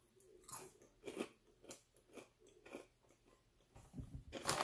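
Quiet, crunchy chewing of crisp, ridged cheese potato chips: about five crunches roughly half a second apart. A louder rustling noise starts near the end.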